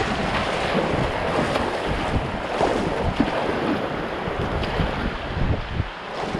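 River water rushing and splashing around a kayak's hull as it paddles through choppy current, with paddle blades dipping and splashing. Wind buffets the microphone.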